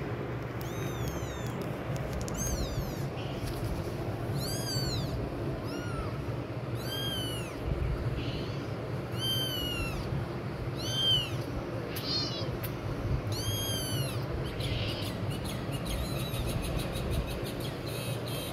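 Young kitten crying for its mother: a run of about a dozen high-pitched mews, each rising and then falling in pitch, coming roughly once a second.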